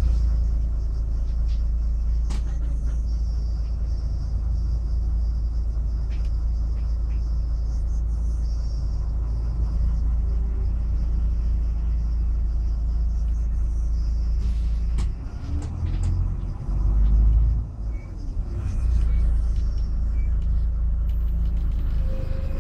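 Steady low rumble of a city bus driving, heard from inside the passenger cabin. About fifteen seconds in, the rumble dips, swells for a moment and dips again before settling back to its steady level.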